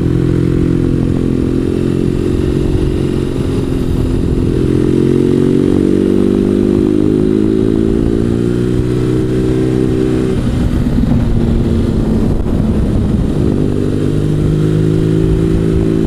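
BMW R1200GS boxer-twin engine under way, its pitch rising steadily as it pulls for several seconds. The pitch drops suddenly about ten seconds in, then the engine runs at a steady pitch near the end.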